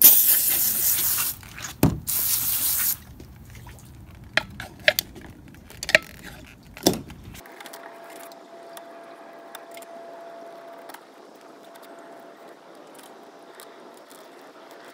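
Water jetting onto a fresh sheepshead to rinse it, in two loud hissing bursts of about a second each. A few sharp knocks follow as the fish is handled on the cleaning table.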